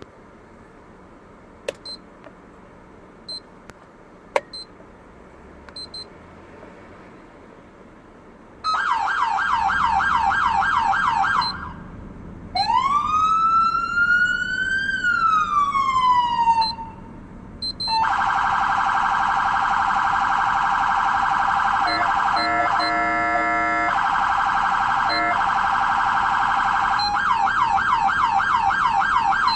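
Federal Signal SS2000 SmartSiren electronic siren cycling through its tones: after a few faint clicks, a fast yelping warble for about three seconds, then one slow wail rising and falling, then a long, very rapid warble with a lower, choppier horn-like tone mixed in for a few seconds, returning to the fast yelp near the end.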